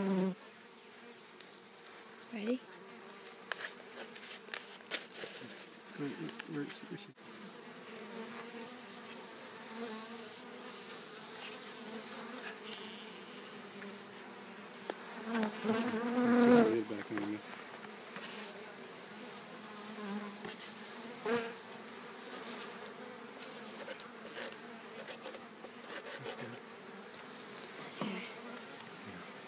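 A swarm of honeybees from a bee package buzzing steadily, swelling louder for a moment about halfway through, with a few scattered clicks and knocks of handling.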